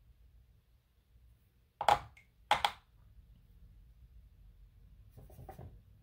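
Two short, sharp knocks about half a second apart, then fainter small taps near the end.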